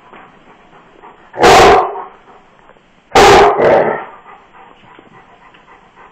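A large dog barks loudly at another dog: one bark about a second and a half in, then two quick barks about three seconds in. The barking is over food.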